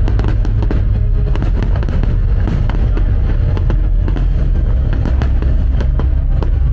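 Fireworks bursting and crackling in quick succession over loud music with a heavy bass.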